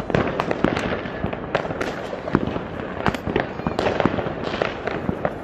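Fireworks going off in a continuous barrage: many overlapping bangs and cracks at irregular intervals over a constant crackling rumble.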